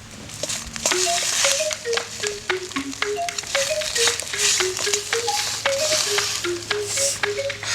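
Background music: a light melody of short plucked notes over a quick ticking beat, with a high hiss of food frying in a wok underneath.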